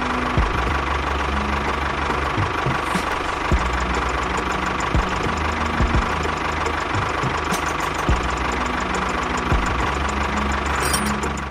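A small motor running steadily, with a thin whine and irregular short knocks.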